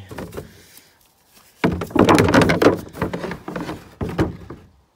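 Objects being handled and pulled loose: a loud scraping and rattling for about a second and a half, then a few knocks.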